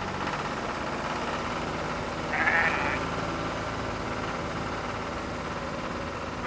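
A sheep bleats once, briefly, a little over two seconds in, over a steady humming background.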